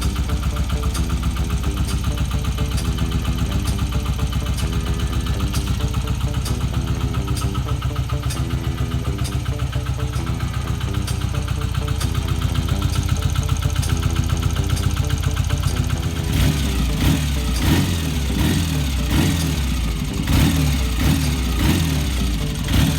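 BSA A65 Lightning's 650 cc parallel-twin engine idling steadily. About two-thirds of the way in, the throttle is blipped repeatedly, the revs rising and falling several times.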